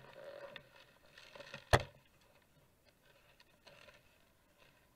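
Handling noise from a small camera being picked up and turned over: faint rustling and scraping, with one sharp knock a little under two seconds in.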